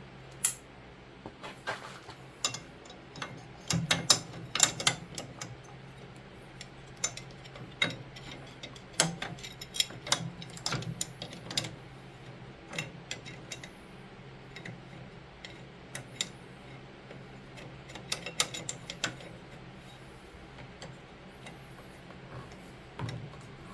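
Irregular metallic clicks and taps of bolts and small parts being handled and fitted by hand to a snowblower's friction-wheel assembly, over a steady low hum.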